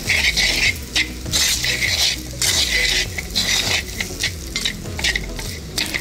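Cut boiled tripe and offal frying and sizzling in a clay pot as they are stirred and scraped with a wooden spoon through the oil and spice tempering, in repeated strokes.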